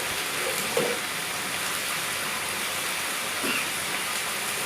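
Food frying in hot oil in a pan: a steady, even sizzling hiss.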